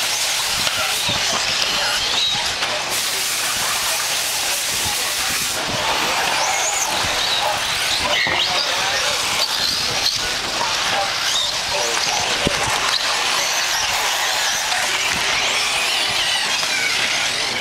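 Several 1/8-scale nitro RC buggies racing, their small two-stroke glow engines making a high-pitched whine that rises and falls as they rev and back off, over a steady hiss.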